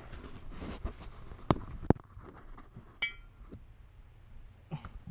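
Small metal parts and tools being handled: two sharp knocks about a second and a half in, then a single metallic clink with a brief ring about three seconds in, and a few lighter clicks.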